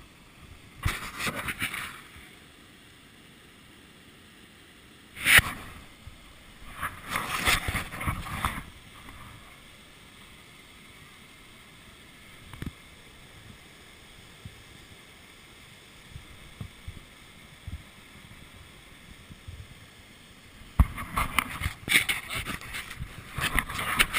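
Handling noise from a hand-held action camera: scattered bursts of rubbing and scraping, with a sharp knock about five seconds in and a denser run of scraping near the end, over a faint steady hiss.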